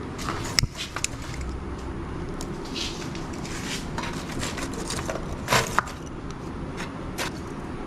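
Coconut shells on lump charcoal in a grill catching fire after being lit with charcoal-lighting gel: scattered light crackles and clicks over a steady low background, with one brief louder hiss about five and a half seconds in.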